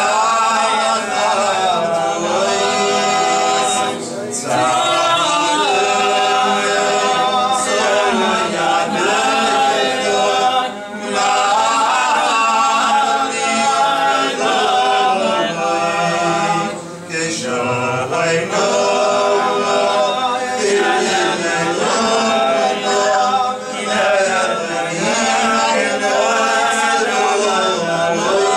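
A congregation of men singing Selichot prayers together, unaccompanied, with short pauses between phrases.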